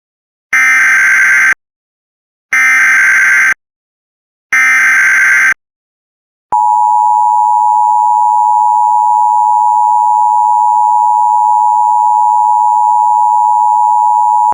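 Emergency Alert System signal: three one-second bursts of SAME header data tones, two seconds apart, then a loud steady attention tone from about six and a half seconds in, held for about eight seconds. It is the opening of an alert for a tornado warning.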